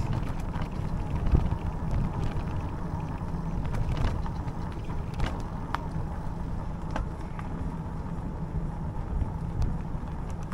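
Low rumble of an e-bike riding down a bumpy, rough lane, with scattered small knocks and rattles from the bike over the bumps.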